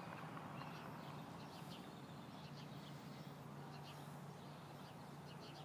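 Faint outdoor ambience: scattered short bird chirps in the distance over a steady low hum.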